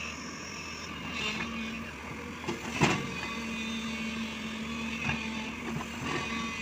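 JCB 205 tracked excavator's diesel engine running steadily while the boom and bucket work in wet mud, with a single sharp knock about three seconds in.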